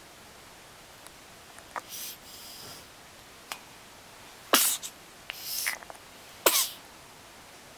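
Two sharp sneezes about two seconds apart, with short breathy sounds before and between them.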